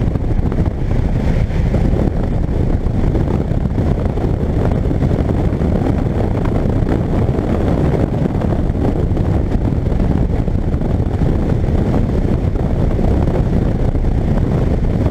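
Sports car's engine running hard at high revs under throttle, heard from inside the cabin, mixed with steady wind and road noise buffeting the camera microphone.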